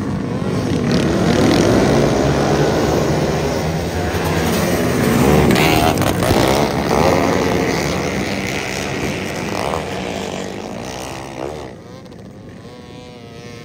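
A pack of 250 outlaw kart engines racing on a dirt oval, a loud, dense mix of many engines at speed. About eleven seconds in the noise drops sharply, leaving a quieter engine whose pitch wavers up and down.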